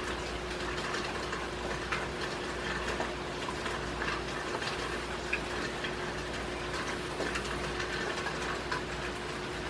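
Steady rain falling, with scattered drops ticking close by and a faint steady hum underneath.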